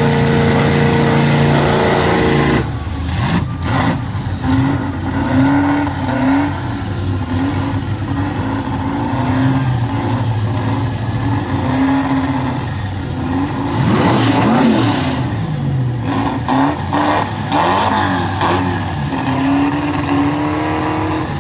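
Drag-race car engines revving hard. A steady high-rev drone cuts off about two and a half seconds in, and is followed by repeated short revs that rise and fall, with sharp pops among them.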